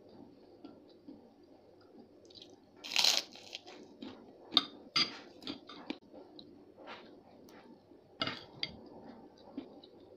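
Crunching bites and chewing of a crispy white kerupuk cracker: a loud crunch about three seconds in, a run of sharp crunches a second or two later and another near the end, with quieter chewing between.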